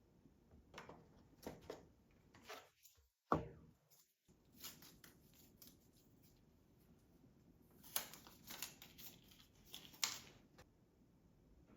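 Packaging of a new iPad being handled and opened: a run of short rustling and tearing sounds, with one sharp knock a little over three seconds in and a denser cluster of rustles near the end.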